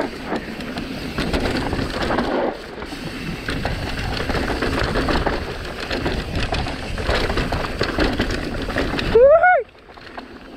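Mountain-bike riding noise on a dirt trail: tyres rolling and chattering over rough ground, with wind rush on the camera microphone. About nine seconds in, a short high tone rises and falls, and then the noise drops off sharply.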